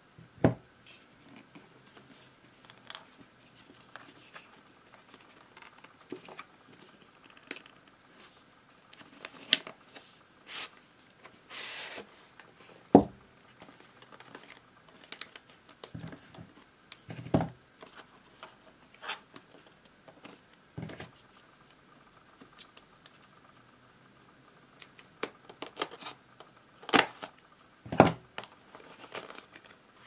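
Cardboard earbud box being handled: scattered taps, scrapes and light knocks of fingers and card, a brief rasp about twelve seconds in, and a few louder knocks as the box is put down and its lid flipped open near the end.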